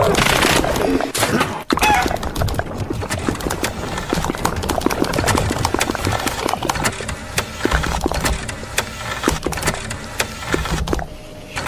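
A dense, irregular run of clicks and knocks with a brief break about two seconds in, growing quieter near the end.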